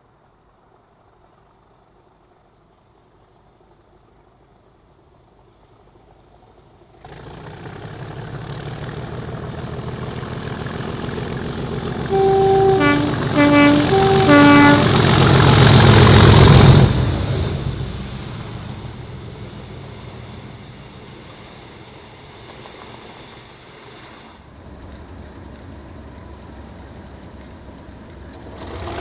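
English Electric Class 37 diesel locomotive's V12 engine growling as it approaches, sounding its two-tone horn in several short alternating blasts, then passing close by and fading away. The engine comes in suddenly about a quarter of the way through.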